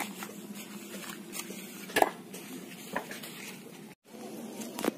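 A few scattered sharp clicks and knocks, the loudest about two seconds in, over a low steady background hum. The sound cuts out for an instant near the end.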